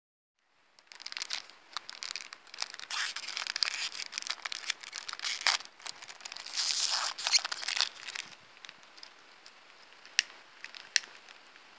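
Foil wrapper of a WetFire tinder cube being torn open and crinkled by hand, in quick rustling bursts, then two sharp clicks near the end.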